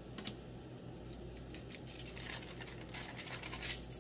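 Soft crinkling and patting from fingers pressing dry seasoning into raw pork chops on a foil-lined baking sheet and lifting one chop. The crinkles come in scattered clusters, over a faint steady hum.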